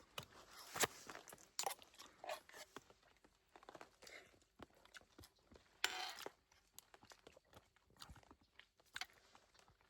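A person chewing and biting cooked frog meat off the bone, faint scattered crunches and mouth clicks, with a short louder crunch about six seconds in.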